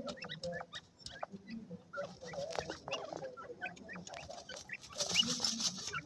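Grey francolins giving many soft, short chirping calls, with quick clicks from pecking at seed in a dish. A brief rustling hiss comes about five seconds in.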